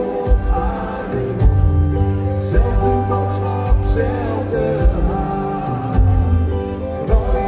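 Live band playing in a large arena, heard from the audience: a man singing over acoustic guitar, piano and drums, with a steady kick-drum beat.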